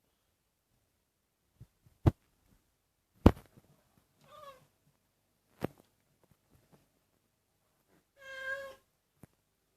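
An old cat meowing twice: a short meow about four seconds in and a longer, fuller meow near the end. Between them come a few sharp clicks, which are the loudest sounds.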